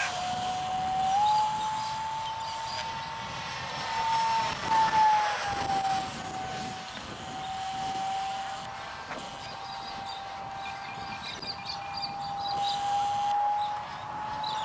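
Whine of a 50 mm electric ducted fan on a radio-controlled model jet in flight. It holds a steady pitch, then swells and drops in pitch as the model passes by, about five seconds in.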